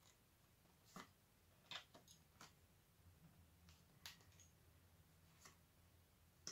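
Near silence broken by a few faint clicks and light rustles as oracle cards are drawn and laid down on a cloth-covered table.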